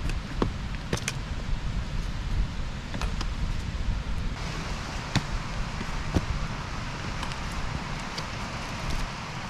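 Wind rumbling on the microphone while a hiker climbs over snow and black ice, with a few sharp irregular clicks from the walking.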